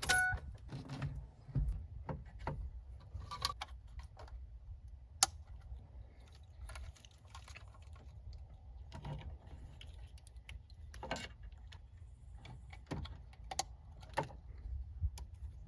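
Scattered light clicks and rattles of plastic dash parts and wiring connectors being handled during a car radio install, irregular and with one sharper click about five seconds in.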